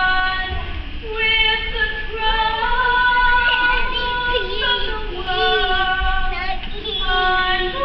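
Mixed junior-high choir singing in several parts, holding chords that change about every second, with some voices sliding between notes.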